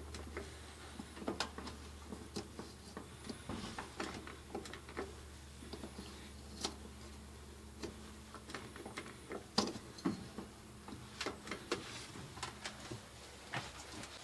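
A series of irregular light clicks and knocks, a few a second, over a faint steady low hum.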